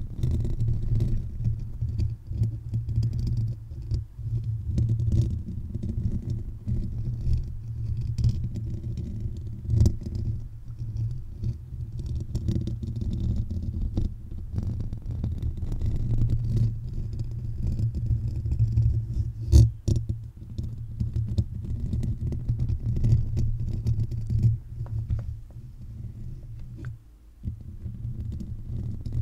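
Bare fingertips and nails scratching and rubbing on the metal grille of a Blue Yeti condenser microphone. This gives a steady, muffled low rumble with scattered light taps and scratches. A sharper click comes a little past the middle, and it eases off briefly near the end.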